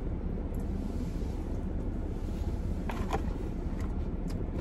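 Steady low background rumble, with a couple of faint clicks about three seconds in.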